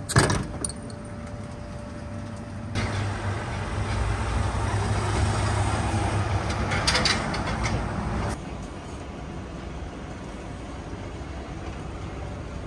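A sharp clink right at the start, then a motor running steadily with a low hum that comes in suddenly about three seconds in and cuts off about five seconds later.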